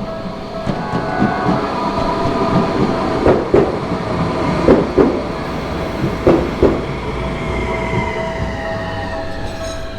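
A Tokyu Setagaya Line 300-series two-car train passing through the level crossing. Its wheels clack over the rail joints in three pairs in the middle, over a steady ringing tone from the crossing warning bell, and a falling whine comes in near the end.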